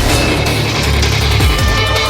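Loud electronic music with a heavy, deep bass line.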